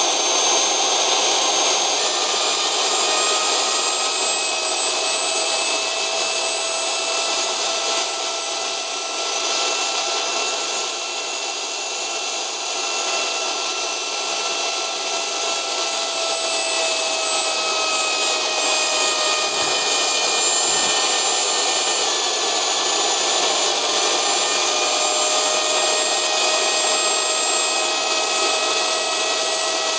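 Small homemade jet engine running steadily on a test stand: a loud, even rushing noise with a high whine whose pitch shifts slightly a few times.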